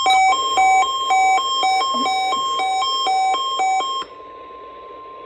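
Weather radio receiver's alert siren set off by a required weekly test: loud beeping that alternates a low and a high tone about twice a second, over a steady warning tone and radio hiss. The beeping stops about four seconds in, and the steady tone carries on to near the end.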